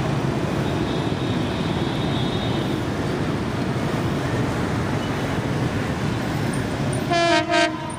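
Steady low rumble of an approaching diesel locomotive mixed with street traffic. Near the end a horn sounds two short blasts on one steady tone.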